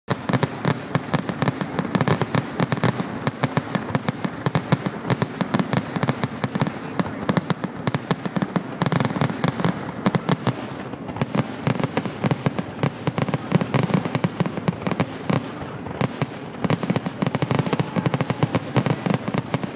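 Aerial fireworks display: a dense barrage of shell bursts and crackling, many sharp bangs a second with no break.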